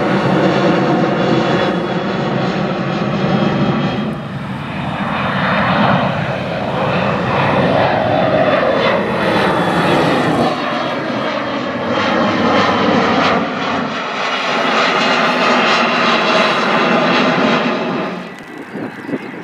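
Turbofan engines of jet airliners climbing out overhead after takeoff, a steady engine sound with many whining tones: a Boeing 737 first, then about four seconds in an Embraer regional jet, whose tones glide downward in pitch as it passes. Near the end the sound drops noticeably quieter.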